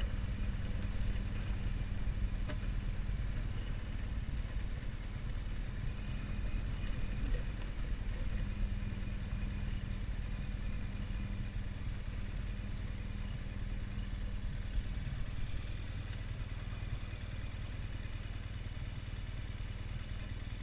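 An engine running steadily at an even speed, a low drone with a few faint ticks.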